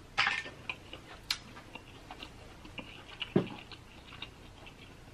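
Close-miked mouth sounds of someone chewing seafood: scattered small wet clicks and ticks, with a short crackle just after the start, a sharper click about a second in and a soft thump about three and a half seconds in.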